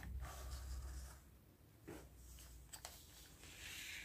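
Faint scraping and rustling with a few light clicks, as a small wooden ice-cream-stick toy model is turned by hand on a sheet of paper.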